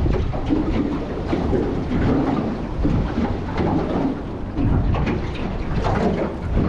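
Wind buffeting the microphone on a small boat at sea, a steady low rumble broken by many irregular short knocks and splashes.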